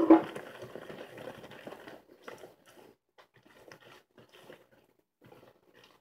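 Fingers kneading and squeezing a soft, sticky dough of margarine creamed with egg and chocolate flan powder in a plastic bowl: soft, irregular squishing and small sticky clicks that grow fainter. A short louder sound comes right at the start.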